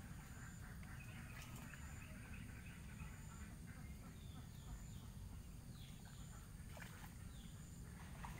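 Faint birds chirping, with a few short falling calls about halfway through, over a low steady rumble. Two or three brief sharp sounds break in near the start and near the end.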